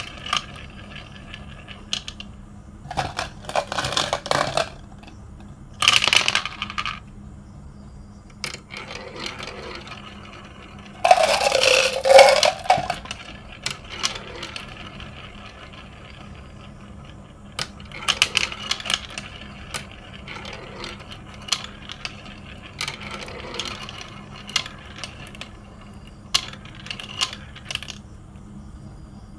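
Glass marbles rolling and clattering through a plastic marble-run toy's tubes and spiral funnels, with many sharp clicks as they drop and knock together and bursts of rattling. The longest, loudest clatter comes about eleven seconds in, over a steady low hum.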